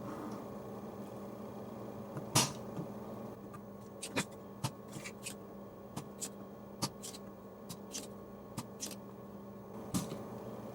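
Scattered sharp clicks and light taps of small hand tools working on a car amplifier's circuit board as its jack posts are cleaned out, one louder click about two and a half seconds in, over a steady low hum.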